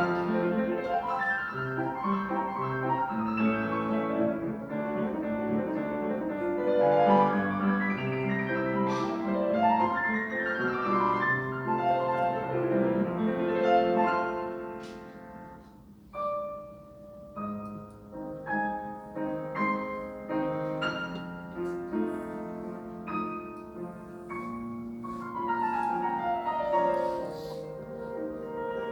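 Solo piano playing a classical piece: full, busy passages with rapid runs, then a softening about halfway before shorter, separated chords and a descending run near the end.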